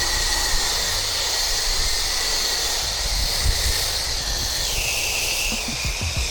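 Pressure washer spraying a soap mix onto brick: a steady spray with a low rumble underneath, its pitch stepping up a little about four and a half seconds in.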